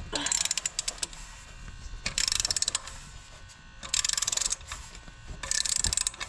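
Hand ratchet wrench clicking in four quick bursts, about one every one and a half seconds, as it is swung back and forth to loosen exhaust bolts.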